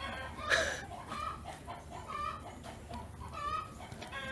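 A run of short, pitched animal calls, about three or four a second, the loudest about half a second in.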